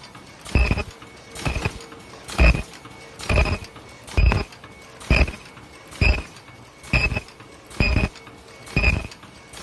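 Fully automatic inner-ear-loop mask making machine cycling: a short mechanical clack with a brief ringing tone repeats about once a second, in an even rhythm over a steady running hum.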